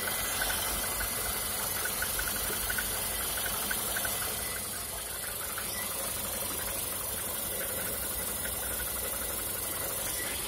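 VAZ 21099 engine idling with a fast, even metallic ticking knock on the alternator side, which the owner suspects comes from the valves or from a crankshaft pulley with a worn keyway.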